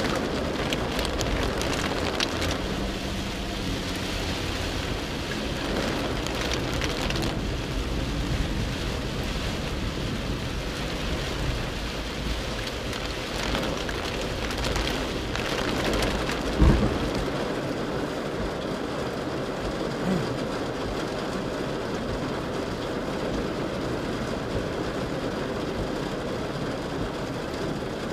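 Steady rain on the windscreen and body of a moving Mercedes G300 (W461), mixed with road and water noise as it drives through flooded streets, heard from inside the cabin. A single sharp thump comes about 17 seconds in, and a smaller one a few seconds later.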